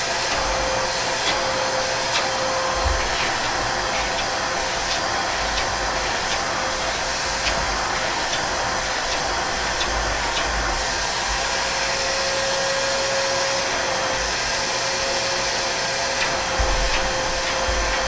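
Fujihama 1200 W wet/dry vacuum cleaner running steadily: an even rush of air over a constant whine, with scattered faint ticks.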